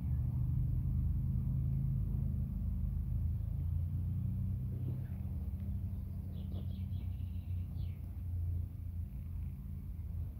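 Steady low rumble, with a quick run of short, high chirping notes from a bird about six seconds in.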